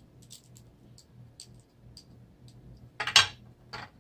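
Small plastic LEGO pieces clicking and tapping as they are handled and pressed together, with a louder plastic clatter a little past three seconds in and another sharp click just before the end.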